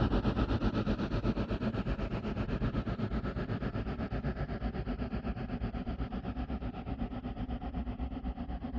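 Horror sound effect: a low, rumbling drone that throbs rapidly and evenly, about six pulses a second, slowly fading away.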